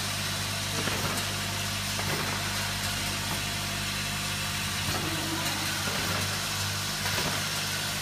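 Vibratory bowl feeder running with a steady electrical hum, with faint clicking from the short aluminium tubes it shakes along its spiral track.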